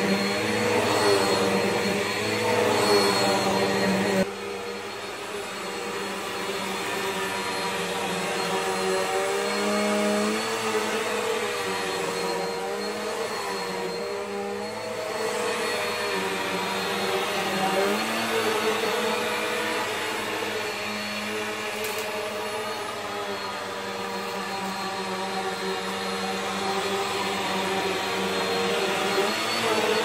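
Bissell PowerForce Helix (12B1) bagless upright vacuum, with its 10-amp motor, running while it is pushed back and forth over thick carpet. The motor's pitch wavers up and down with the strokes. The sound is louder for the first four seconds, then drops a little.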